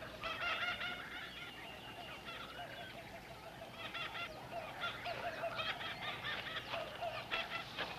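Birds calling in the jungle: a run of short, pitched calls coming in clusters, one after another.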